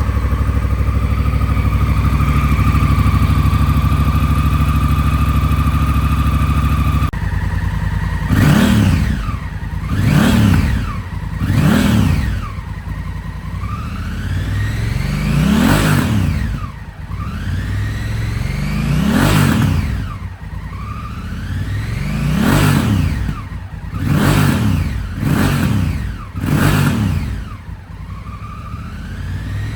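A 2016 Honda CRF1000L Africa Twin's parallel-twin engine, breathing through an Akrapovic slip-on muffler, just after starting. It runs at a steady raised idle for about seven seconds, then settles and is blipped about ten times, the revs climbing and falling quickly each time. It revs up crisply and freely, a sign of a healthy engine.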